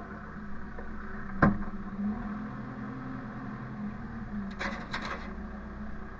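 Hay bales being shoved into a loaded trailer: one sharp wooden-sounding knock about a second and a half in, then a short scraping rub near the end, over a steady engine hum.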